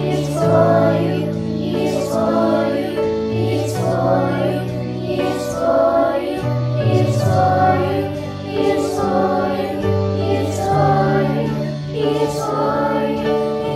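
A children's choir, recorded as a virtual choir, singing a slow Christian worship song, the words 'He is for you', over an accompaniment that holds long low notes.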